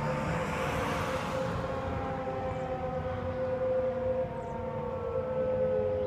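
Federal Signal 2001-DC outdoor warning siren sounding its dual-tone wail during a test, several tones held together while some of them slowly fall in pitch. A rush of noise fades out in the first second and a half.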